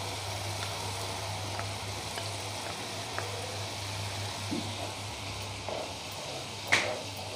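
Tomato and spice masala sizzling gently in a pan, with light scraping and faint ticks as onion paste is added and stirred with a wooden spatula. A sharp knock of the spatula against the pan comes near the end.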